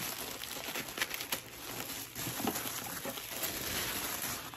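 Paper packaging rustling and crinkling as contents are unwrapped from a box.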